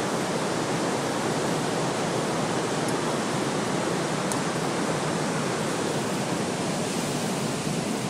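Steady, dense rush of the Gullfoss waterfall, the Hvítá river plunging into its canyon.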